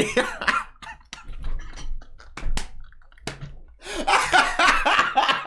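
People laughing in short bursts over a voice call, louder near the end.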